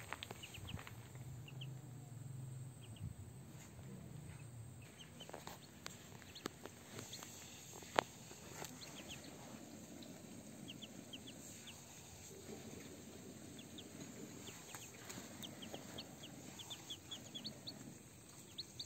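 Muscovy ducklings and a chick peeping: short, high, rising peeps in scattered runs, growing more frequent near the end. One sharp click about eight seconds in.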